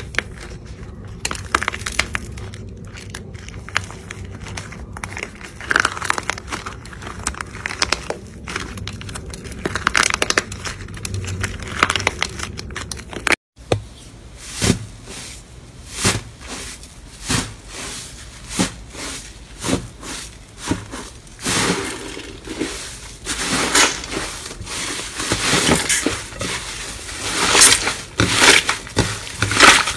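Crunchy pink slime crackling as hands crack and pull apart its hardened crust. After a break about halfway, a crumbly 'tofu dregs' slime squelches and crackles under pressing fingers, first in separate presses about once a second, then in loud, dense crackling near the end.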